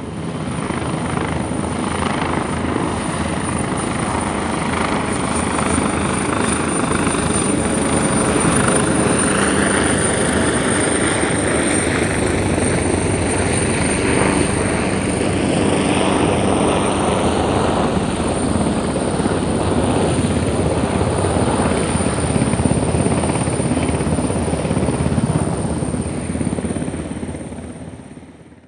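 Military helicopter flying over: continuous rotor and engine noise with a steady high whine, the pitch slowly shifting as it passes, fading out near the end.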